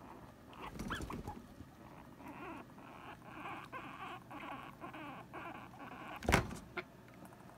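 Guinea pig making a run of short, pitched whining squeals, about two a second, the protest call of a squabble over hammock space. A single sharp knock sounds about six seconds in.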